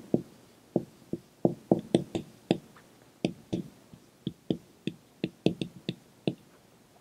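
Dry-erase marker writing on a whiteboard: an irregular run of quick taps and short squeaks as the strokes are drawn, stopping shortly before the end.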